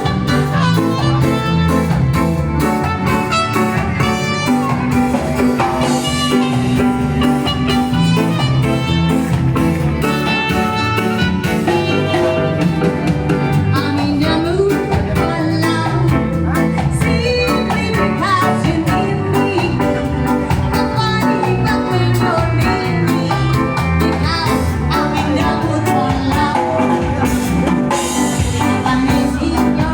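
Reggae band playing live at a sound check, with singing over a steady beat.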